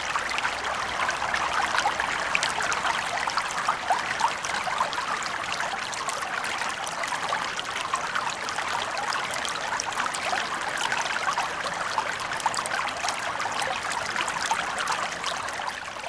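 Water flowing and trickling steadily, a babbling stream with many small splashes and bubbles.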